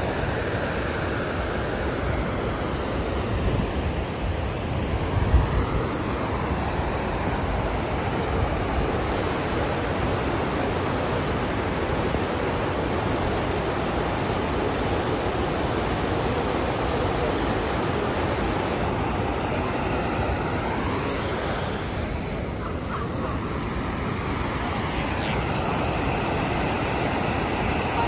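Gullfoss, a large two-tiered waterfall, pouring into its gorge: a steady rush of falling water, with a brief low bump about five seconds in.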